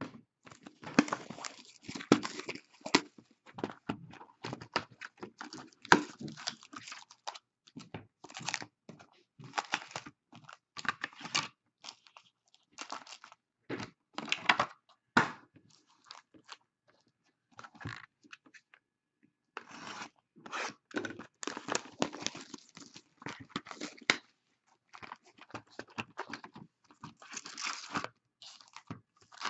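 Plastic wrapping on trading card boxes and packs being torn and crinkled by hand, in irregular bursts of crackling with short pauses.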